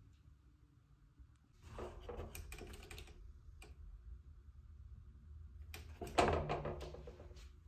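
Clicking and rattling of a metal over-door hook rack as a snapback cap hanging on it is handled, in two bursts, the second louder.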